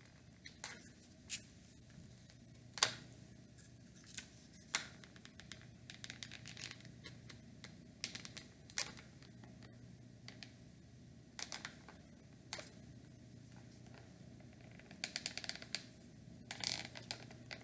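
Small wooden birdhouse pieces being handled and glued: scattered light clicks, taps and short scrapes, with a quick cluster of clicks near the end, over a faint steady hum.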